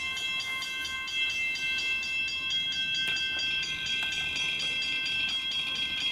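Railroad level-crossing warning bell ringing rapidly and steadily, about five strikes a second, its ringing tones held between strikes.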